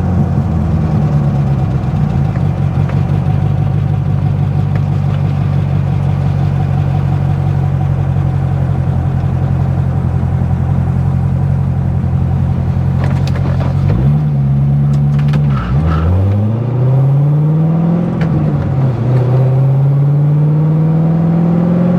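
A C6 Corvette Z06's 7.0-litre LS7 V8 running at a steady cruise. About two-thirds of the way in, its pitch dips and then climbs twice, broken by a sudden drop in between: the car accelerating through a gear change.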